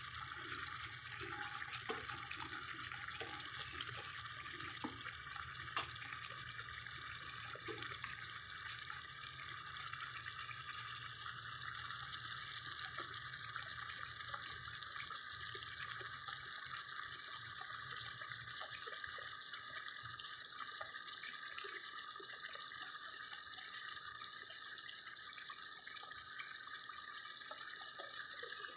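Pot of meat and potato stew simmering: a steady sizzling hiss with small pops of bubbles breaking in the sauce. A few light knocks come in the first several seconds as a wooden spatula stirs it.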